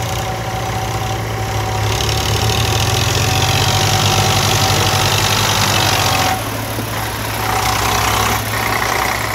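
Eicher 485 tractor's three-cylinder diesel engine pulling a loaded soil trolley up a slope, working under load. It grows louder about two seconds in and drops back suddenly a little after six seconds. The climb is easy: the trolley is only partly full.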